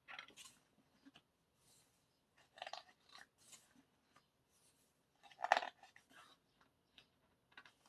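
Paper rustling in short bursts as glossy photobook pages are handled and turned, with one louder rustle about five and a half seconds in.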